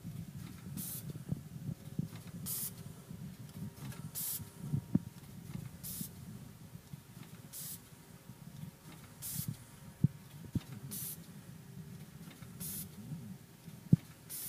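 GammTech VVF vertical form-fill-seal machine running, making powder-detergent PVA pouches: a short hiss of compressed air about every 1.7 seconds as its pneumatic sealing-jaw cylinders cycle, over a steady low machine hum, with a few sharp clicks.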